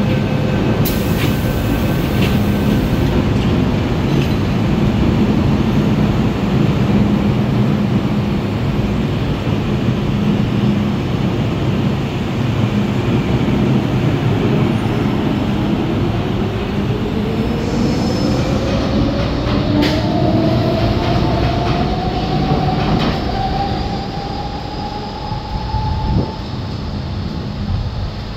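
MTR M-Train metro train running on the rails with a steady loud rumble. In the second half a single electric whine rises slowly in pitch over about ten seconds, then the running noise eases slightly near the end.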